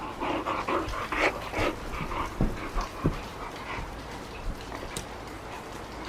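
Akita dog panting in quick rhythmic breaths that fade out after about two and a half seconds, with a couple of short thumps.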